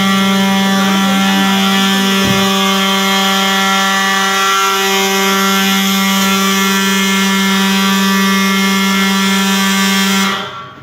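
Apartment fire alarm sounding one loud, steady, low buzz that cuts off suddenly about ten seconds in. A single short knock is heard about two seconds in.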